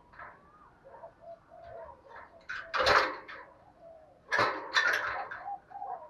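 Caged spotted dove giving a few soft, low coos, with louder noisy bursts about three seconds in and again around four and a half seconds in.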